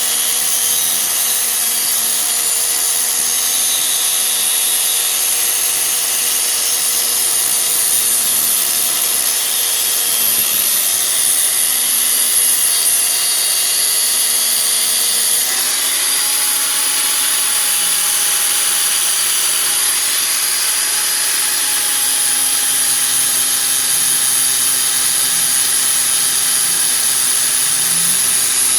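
Angle grinder with a thick abrasive cleaning disc grinding the face of a car's brake disc, running continuously with a hard hiss. Its pitch wavers with the load and steps up about halfway through. This is the wear ridge being ground off the disc to stop it squealing.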